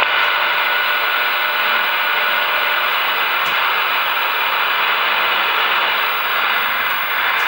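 Steady static hiss from an Intek Galaxy Uranus transceiver's speaker, tuned to the 10-metre band on single sideband with no station coming through: band noise cut off above about 4 kHz by the receiver's filter.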